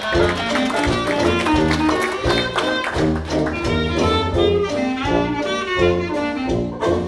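Traditional jazz band playing live: clarinet, trumpet, banjo, tuba and drums together over a steady bass beat.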